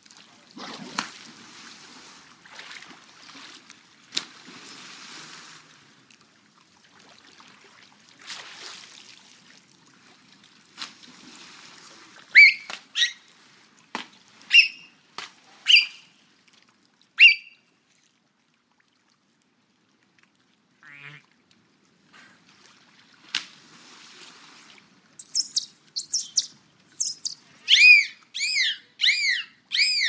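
Dolphin calls: soft rushes of water noise, then a handful of sharp short chirps midway and a brief buzzing click train. Near the end comes a quick run of arched whistles that rise and fall in pitch.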